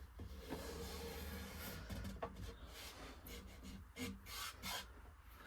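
Masking tape being rubbed and smoothed down along the edges of a painting board: a soft, scratchy rubbing with a few short, louder strokes partway through and near the end.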